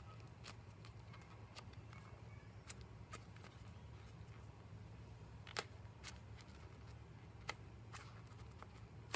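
Faint, scattered clicks and taps of hands handling a foam squishy toy, with a low steady hum underneath.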